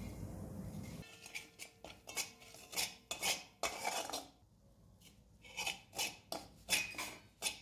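Metal spatula scraping and knocking against an iron kadai while stirring flour in ghee: a series of short clatters with a pause of about a second midway.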